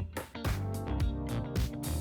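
Upbeat background music with a steady drum beat and guitar, with a brief drop-out about a quarter of a second in.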